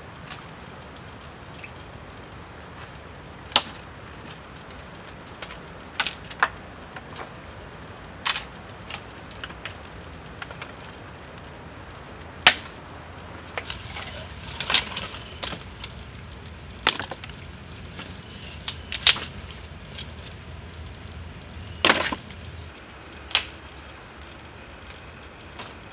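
Dry dead branches being snapped and broken by hand: about ten sharp cracks at irregular intervals, with quieter crackling of twigs between them.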